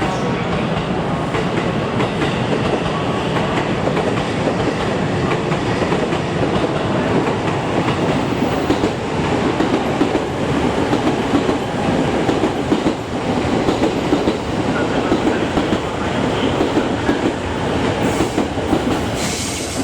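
Train running through the station, its wheels clattering steadily over the rail joints.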